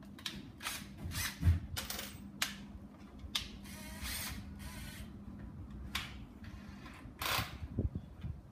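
Handling a cordless drill-driver and small parts at a workbench: a string of irregular clicks, rattles and short scraping noises, with a heavier knock about a second and a half in.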